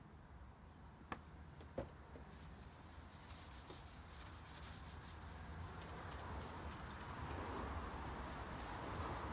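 A rag rubbing over a chainsaw guide bar during its finishing wipe: two light clicks in the first two seconds, then steady rubbing that grows louder.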